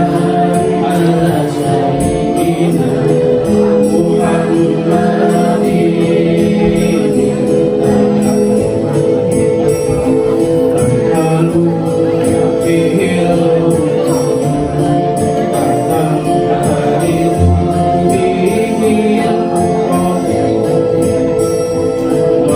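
A man's voice singing shalawat, an Islamic devotional song in praise of the Prophet, into an amplified microphone over accompanying music with steady held tones and light jingling percussion.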